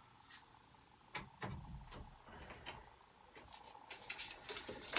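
Light knocks and clinks of copper plumbing fittings and tools being handled during a dry fit, a few at a time, busiest near the end.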